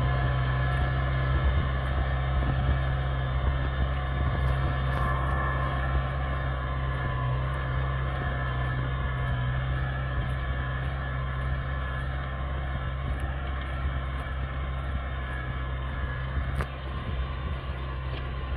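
New Holland TD90D tractor's diesel engine running steadily under load as it pulls a plough through grass sod, fading gradually as the tractor moves away.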